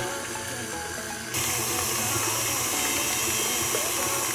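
KitchenAid stand mixer running, its beater mixing wet cookie dough in a glass bowl. A click at the start, then the motor noise steps up and holds steady about a second in.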